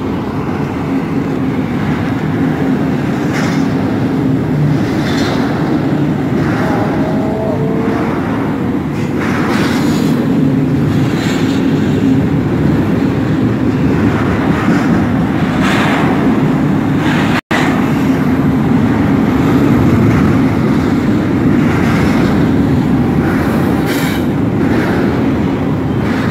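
Double-stack intermodal freight train rolling past: a steady heavy rumble of wheels on rail, with irregular clacks from the cars going by.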